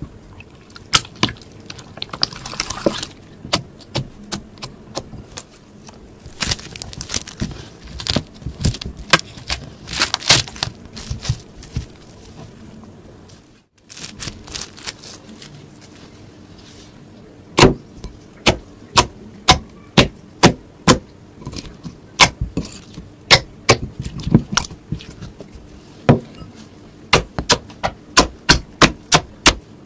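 A spoon stirring thick slime in a glass bowl, with scraping and light clicks against the glass. After a short break, fingers press and poke glossy slime, making sharp clicking pops about twice a second.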